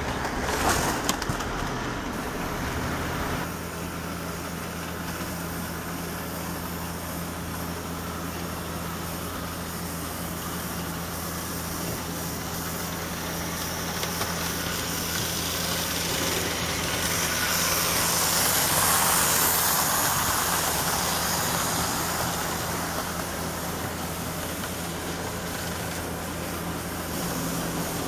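Model trains running on track: a steady electric hum under a rolling rumble that swells to its loudest around the middle and then fades as a train passes close.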